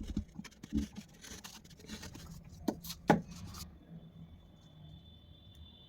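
Scissors cutting and handling a paper cup and balloon: scratchy rubbing and scraping, with two sharp clicks about three seconds in, after which the sound drops to a faint steady high tone.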